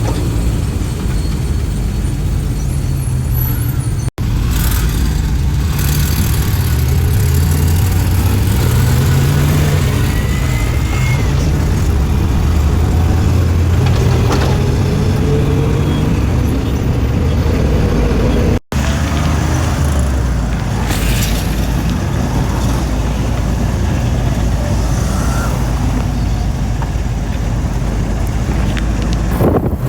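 Road vehicle running: a steady low engine and road rumble whose engine pitch rises and falls, with two brief dropouts to silence.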